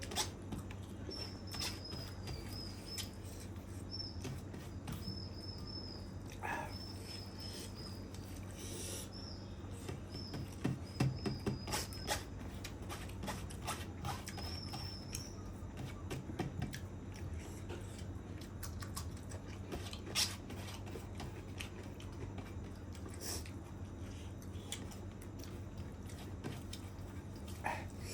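Eating sounds: bare fingers mixing rice with chicken curry and pulling at a chicken leg, with wet clicks, taps and chewing, and a run of quick soft chewing pulses about ten seconds in. A thin, high, wavering chirp repeats faintly through the first half.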